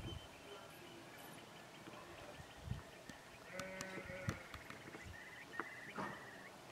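Animal calls: a cluster of pitched calls about halfway through, followed by several short high calls. A few low thumps can also be heard.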